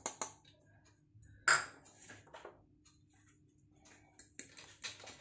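Metal spoon scraping and tapping against small ceramic bowls while powdered ingredients are emptied into a mug: scattered light clicks and clinks, with one louder clink about a second and a half in.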